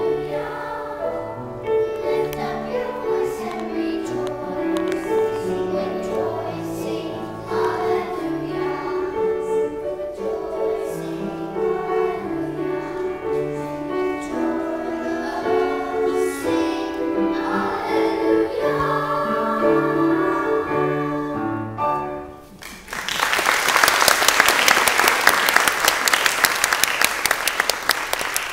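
Children's choir singing a song, which ends about three-quarters of the way through. The audience then applauds for the last few seconds.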